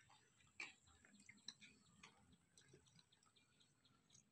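Near silence with faint scattered clicks and small handling sounds of people eating rice and grilled fish by hand, one click a little louder just over half a second in.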